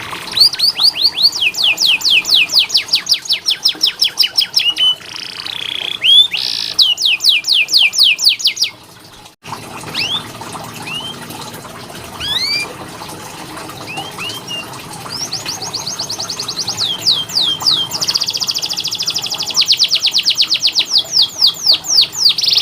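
Domestic canary singing: rolls of rapid, evenly repeated downward-sliding whistled notes, several a second. About nine seconds in the song breaks off suddenly into a quieter stretch of scattered single chirps, then returns to fast trills, the fastest almost running together.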